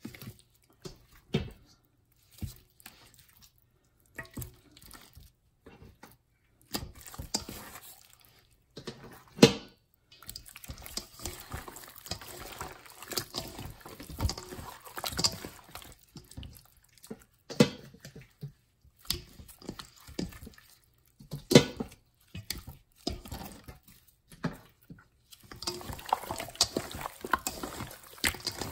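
Raw chicken pieces being mixed in a bowl of oily lemon-garlic marinade: irregular wet squelching and sloshing with short pauses, and two louder sharp knocks partway through.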